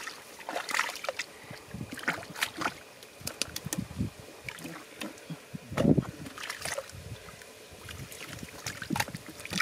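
Hands sloshing and splashing through shallow muddy water while groping for fish, in irregular short splashes, the loudest about six seconds in.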